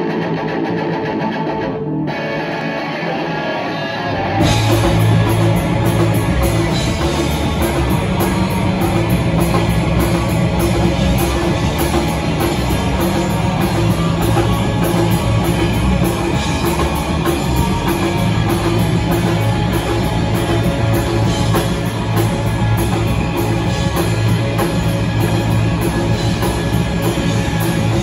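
Live rock band playing an instrumental passage on electric guitars, bass guitar and drum kit. It starts thinner and quieter, and the full band comes in louder about four seconds in.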